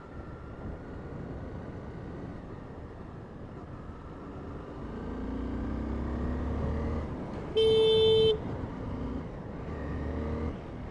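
Honda CBR 250R motorcycle horn sounding once, a single steady beep of under a second about two-thirds of the way in, as a warning to a car pulling into the motorcycle's lane. Under it the bike's engine runs with wind noise, rising in pitch as it speeds up just before the horn.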